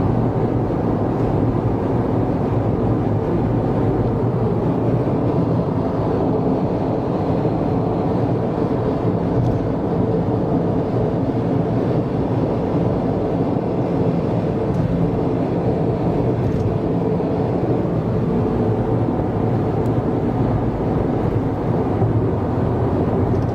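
Steady car noise heard from inside the cabin while cruising on an expressway: an even drone of tyres on the road and engine.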